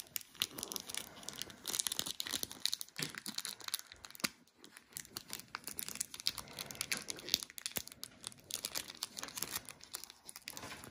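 Paper and plastic packaging crinkling and rustling with scattered small clicks and taps: an instruction sheet and the small-parts packets of a wooden kit being handled.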